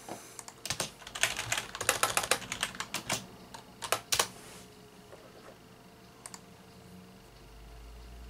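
Typing on a computer keyboard to enter a Google search: a run of irregular key clicks that stops about four seconds in.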